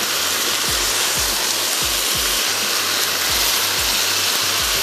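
Noodles in sauce sizzling and frying in a hot pan as they are tossed with tongs, a steady hiss. Background music with a low, steady beat runs underneath.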